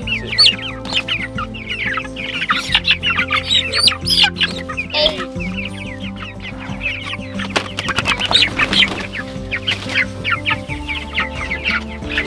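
Young Cornish cross broiler chicks peeping and cheeping, many short high calls overlapping, over background music.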